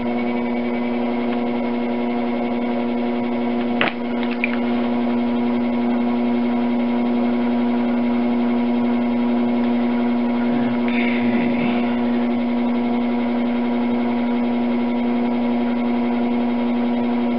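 Electric potter's wheel motor running with a steady hum, one click about four seconds in.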